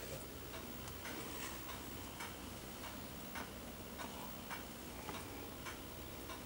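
Faint, steady ticking, a little under two ticks a second, over quiet room tone.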